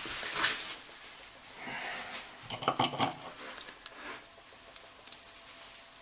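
Small metal clicks and clinks of a Kwikset lock cylinder being taken apart by hand as its retaining clip and cam are worked off. There is a quick run of clicks about halfway through and a single click near the end.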